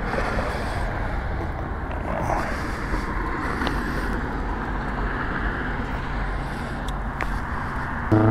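Steady road traffic noise from cars on a busy intersection, a continuous even rush of tyres and engines.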